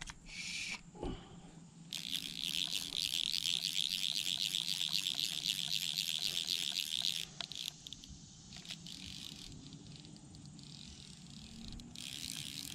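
Fly reel's click-pawl clicking rapidly as line is wound in to take up slack on a hooked fish, for about five seconds before it stops suddenly; it starts again near the end. A short knock comes about a second in.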